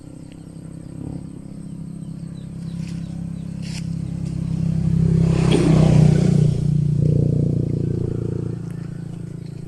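A motor vehicle's engine passing close by: it grows louder to a peak with a rush of noise about six seconds in, then fades away.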